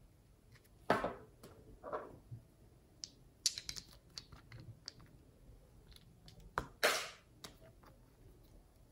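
Fingers handling small plastic charms over a tray of slime: scattered sharp clicks, taps and rustles of plastic and fingernails. The loudest come about a second in and near seven seconds, with a quick run of clicks in between.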